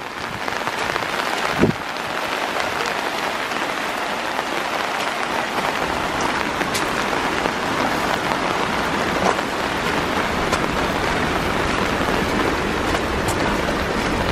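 Steady rain falling, with scattered drops ticking close by and a single thump about two seconds in.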